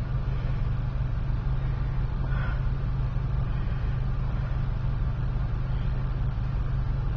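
Steady road and engine noise heard from inside a moving car: an even low drone with a hiss of tyre and wind noise over it.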